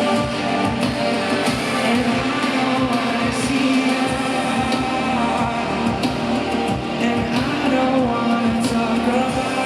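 Live band music: an instrumental passage led by guitar, with a steady drum beat and sustained keyboard or synth notes, in an arena concert mix.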